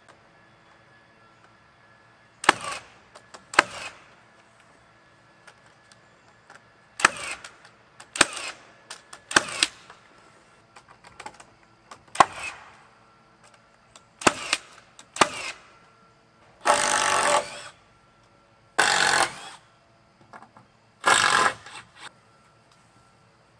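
Carpentry on a wooden frame: about eight sharp single impacts, spaced a second or more apart, then three bursts of rapid rattling about a second long each, like an impact driver driving screws into lumber.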